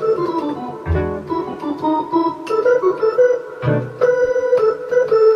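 Two-manual electronic organ played by hand: a melody with chords, and low bass notes coming in about a second in and again near four seconds.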